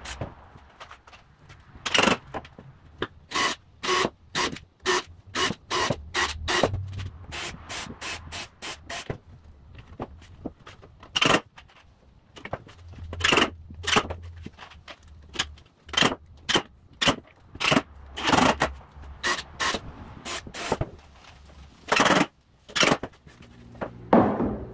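Cordless drill boring a row of holes into a wooden board: many short bursts of the bit cutting in, one after another. They come quickly for the first several seconds, then further apart.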